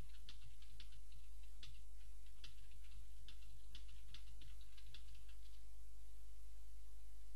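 A run of quick, irregular light clicks that stops about three-quarters of the way through, over a steady low hum.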